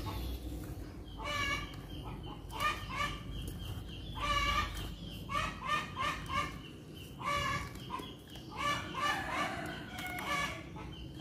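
Chickens clucking: a run of short, pitched calls repeating irregularly, a few of them slightly drawn out.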